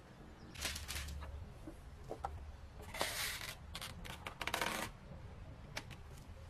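Clear plastic protective film crinkling and rustling as gloved hands lay it over a glass pane, in three short spells with a few clicks between.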